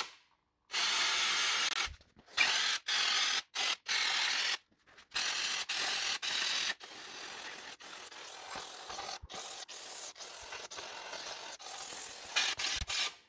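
Aerosol brake cleaner sprayed through a straw nozzle into the honed cylinder bores of an engine block, flushing out the honing cuttings. It comes as a string of short hissing bursts, a longer, quieter spray with brief breaks in the middle, and a few louder bursts near the end.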